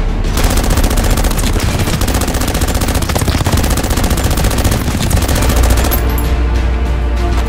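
Automatic rifle fire: one long continuous burst of rapid shots that starts about half a second in and stops about six seconds in.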